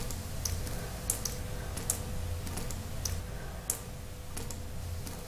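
Sharp clicks at uneven intervals, roughly two a second, over a steady low hum.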